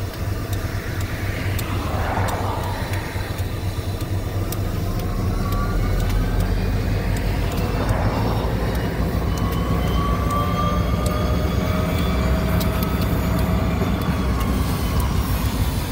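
EMD SD40 locomotive's turbocharged 16-cylinder diesel running in a low, steady drone that grows louder about five seconds in, as a rising whine climbs over it. Cars pass on the road in front about two seconds and about eight seconds in.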